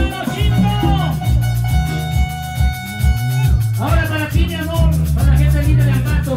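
Live band playing upbeat Latin dance music: a steady bass and drum beat under long held notes, with a melody line coming in about four seconds in.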